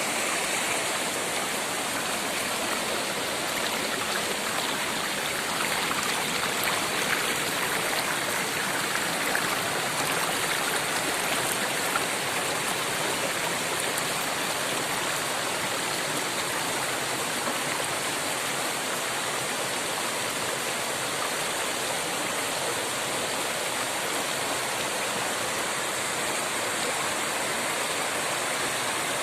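Waterfall: water pouring and splashing, a steady rushing.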